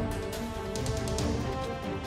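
Soundtrack music: sustained notes over a steady drum beat of about two hits a second.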